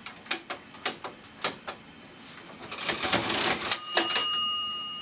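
Antique National Cash Register Model 542: a few sharp key clicks, then the hand crank is turned and the mechanism rattles for about a second, ending in the register's bell ringing and fading out slowly.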